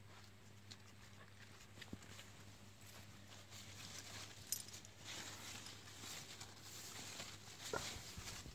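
Faint rustling and scuffling of leaves as a Jack Russell terrier noses through a fig bush, with a few soft clicks; the rustling picks up about halfway through.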